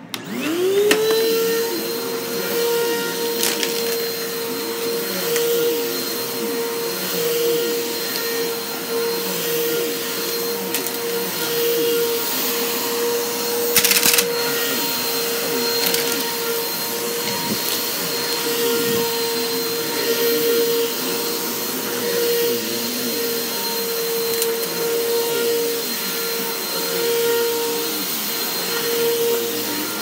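Bissell ProHeat upright carpet cleaner's motor switched on, spinning up within about a second to a steady high whine that runs on while the machine is worked over the carpet. One short loud knock a little before halfway.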